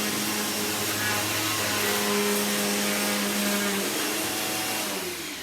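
Bissell CleanView Bagless Plus upright vacuum cleaner running, a steady motor hum and whine with airflow hiss. Its pitch drops about four seconds in, and near the end it is switched off and begins winding down.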